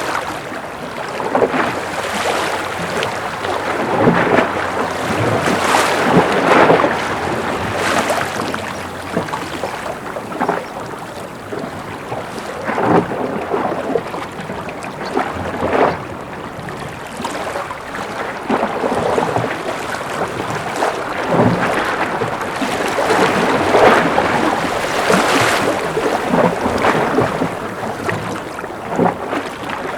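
Gentle ocean waves lapping and splashing, in uneven surges every few seconds.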